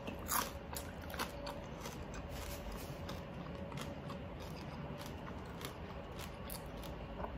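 A person chewing crispy oven-baked pork with the mouth closed: a couple of small crunches in the first second or so, then soft, faint chewing.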